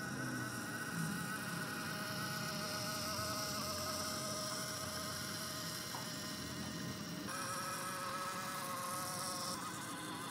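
Small electric motor of a toy truck whining steadily as the truck drives. Its tone shifts abruptly about seven seconds in.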